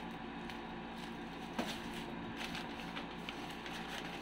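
Packaging being handled: light crinkles and small clicks, with one sharper click about a second and a half in, over a steady faint hum.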